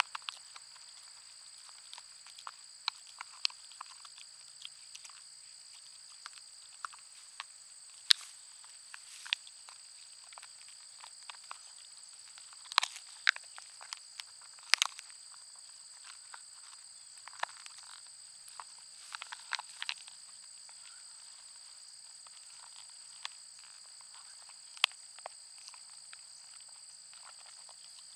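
Dog chewing a bone: irregular sharp crunches and clicks of teeth on bone, some coming in quick clusters of cracks, over a steady high-pitched hum.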